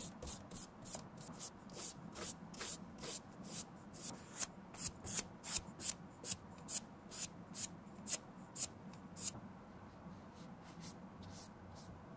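Flat synthetic paintbrush stroking red leather pigment onto an Air Jordan 1's leather collar: short swishes of the bristles on leather, about two a second, loudest in the middle and fading to faint strokes about three seconds before the end.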